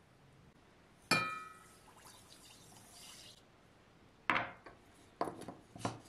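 A drinking glass clinks against the rim of a stainless steel pot with a brief ringing, followed by a soft hiss of a dry ingredient pouring into milk. Near the end come three sharp knocks of the glass against the pot.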